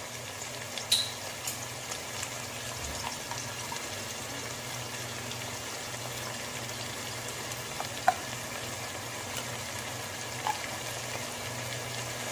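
Vegetables sizzling steadily in a pan over a gas flame, with a few light clicks of a metal spoon against the pan, one about a second in and another near eight seconds.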